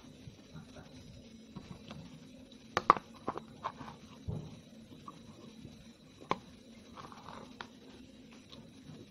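Chewing and mouth sounds of someone eating close to the microphone, broken by a few sharp clicks or crunches, the loudest cluster about three seconds in and another single one a little past six seconds.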